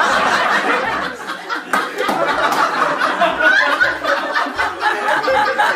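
Audience laughing and chuckling, many voices at once.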